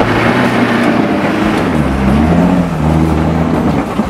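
A 4WD ute's engine revving hard under load as it climbs a steep, loose dirt hill; the engine note dips and then climbs again about halfway through.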